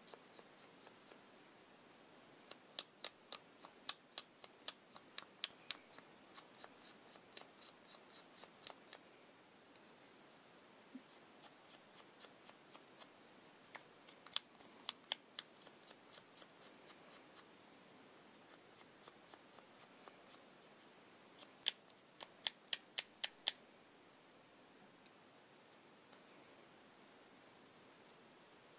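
A small ink pad tapped quickly against the edges of a thin paper flower, making runs of light, crisp paper clicks about three a second. It stops and starts several times as the pad moves around the petals to ink their edges.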